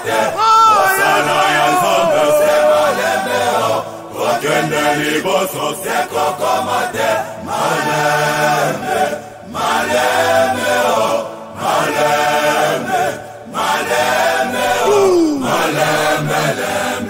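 Gospel choir chanting a short phrase over and over, each phrase about two seconds long with brief breaks between, over a steady low accompaniment.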